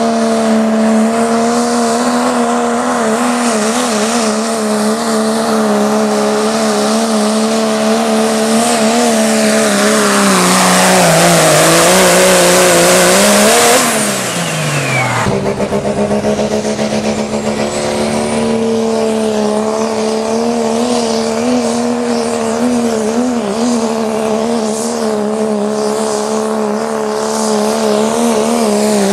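Modified diesel pickup engines at full throttle pulling a weight-transfer sled, first a second-generation Dodge Ram's 5.9 Cummins inline-six, holding a high, steady note. About ten seconds in the pitch sags as the engine loads down, then climbs again before the sound cuts abruptly to another diesel truck pulling at similar high revs.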